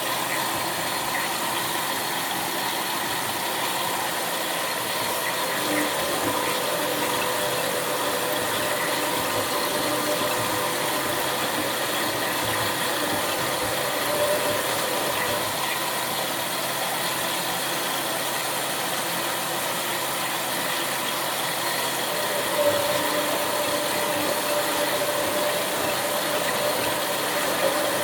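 Bauknecht WA 7778 W front-loading washing machine running its wash, the drum turning with a steady mechanical running noise and a few small knocks. The machine's drum bearing was already starting to fail.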